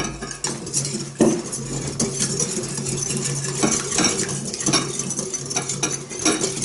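Wire whisk beating raw eggs in a glass bowl: a rapid, continuous clatter of the wires against the glass.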